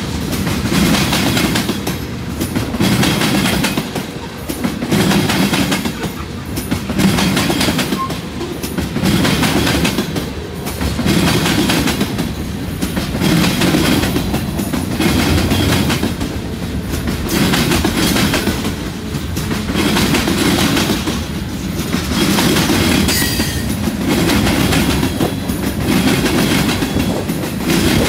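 Freight cars rolling slowly past on jointed track, the steel wheels clacking over the rail joints, with a swell of clacks about every two seconds as each car goes by.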